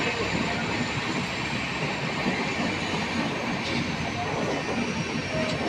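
A passenger train's coaches rolling past at speed, with a steady noise of steel wheels running on the rails.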